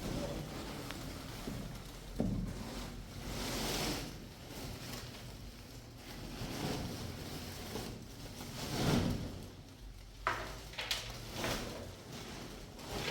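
Irregular handling noises: rustling or scraping swells and a few sharp knocks and clicks.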